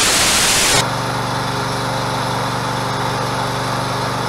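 A burst of loud TV-static hiss that cuts off a little under a second in. It gives way to a steady mechanical drone with a strong low hum: the hydraulic power unit running to drive the rebuilt Bloom 1000 series hydraulic winch.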